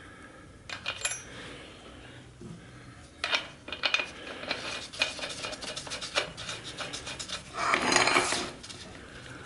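Small metal parts clinking and scraping as a nut and washer are fitted by hand at the rear axle end of a motorcycle swingarm. A quick run of light clinks is followed, about eight seconds in, by a louder metallic rubbing scrape.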